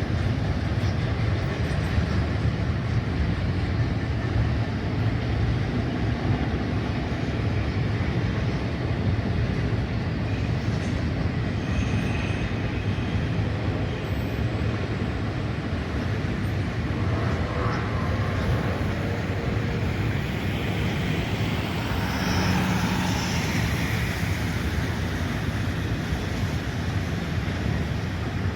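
Diesel freight train running past, a steady low rumble.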